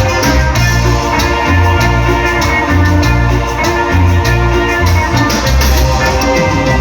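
Band music: an electronic keyboard melody over a repeating bass line and drums, with no singing.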